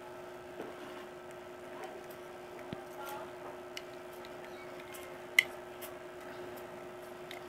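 Faint handling noise of a plastic earbud charging case being worked open, its protective cover pulled back to free the earbuds: light scrapes and small clicks, with one sharper click about five and a half seconds in. A steady hum runs underneath.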